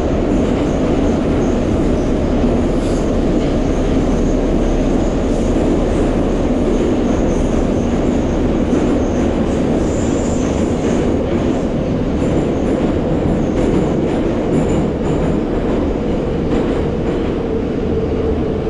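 A metro car running through a tunnel, heard from inside the car: a loud, steady rumble of wheels and running gear. Faint high wheel squeals come and go, the clearest about ten seconds in.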